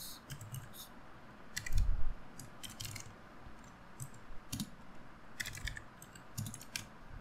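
Typing on a computer keyboard: irregular, scattered keystroke clicks, with a louder low thump about two seconds in.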